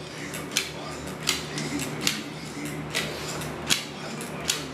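Caulking gun trigger pumped over and over, a sharp click about every three-quarters of a second, over a steady low hum.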